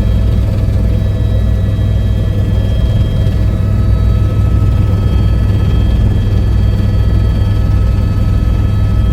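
Helicopter in flight: a loud, steady low drone of rotor and engine, with a few faint steady high whining tones over it.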